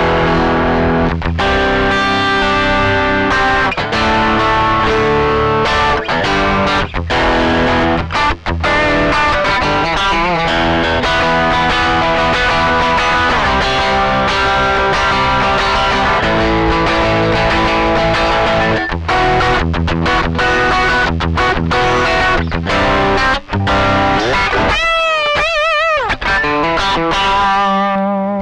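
Electric guitar played through overdrive distortion, riffing with chords and single notes; near the end a high note is held with wide vibrato.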